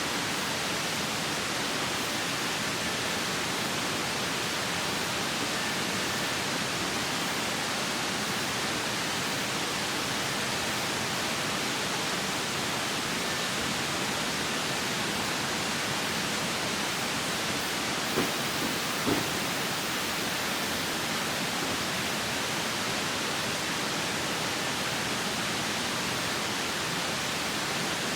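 Steady rushing of a mountain stream, with two short knocks about eighteen and nineteen seconds in.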